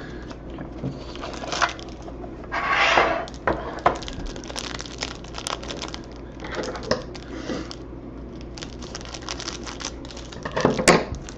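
Plastic wrapping crinkling and tearing, with scattered clicks and taps of handling, as a hobby box of trading cards is opened. There is a longer crinkle about three seconds in and a sharp click near the end.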